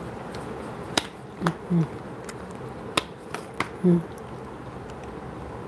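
A person drinking water: a few sharp clicks and three short, low gulps as the water is swallowed, over a steady background hiss.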